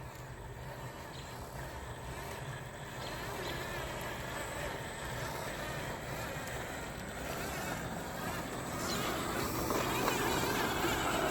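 Small RC truck's electric motor and drivetrain whirring as it drives, growing louder through the second half.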